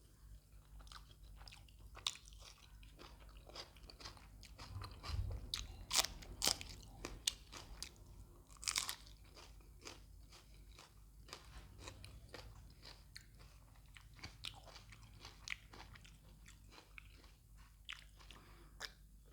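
A person chewing and biting crisp food close to the microphone, with sharp crunches throughout, the loudest between about six and nine seconds in.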